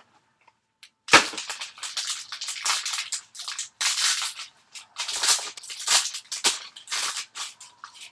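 Crinkly plastic and paper wrapping of a trading card box being torn open and crumpled by hand: dense irregular crackling that starts sharply about a second in and goes on in quick bursts.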